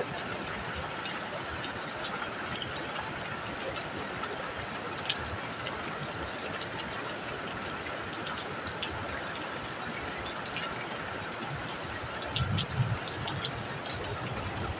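Heavy rain falling steadily on a metal roof, a dense even hiss with scattered sharp drop ticks. A brief low rumble comes about twelve seconds in.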